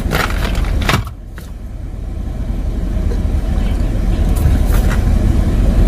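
Car engine and road rumble heard inside the cabin, a low steady rumble that grows gradually louder after a dip about a second in, with a couple of short clicks in the first second.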